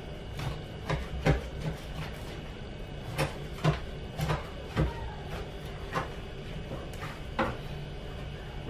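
A not-very-sharp kitchen knife cutting into the tough core of a halved jackfruit: irregular short knocks and scrapes as the blade is worked in, about ten of them, dying away near the end, over a steady low hum.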